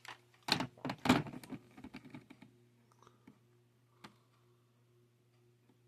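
Sharp plastic clicks and clatter from the VTech DECT cordless phone's keys and handset being handled: a cluster in the first two and a half seconds and a single click about four seconds in. A faint low hum runs underneath.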